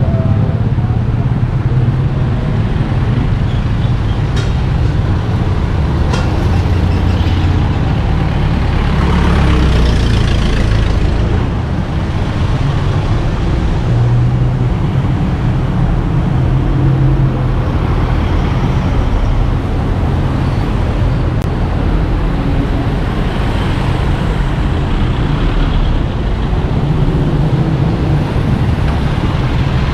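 Steady road traffic with heavy vehicles passing and a continuous low rumble; one vehicle passes louder about ten seconds in.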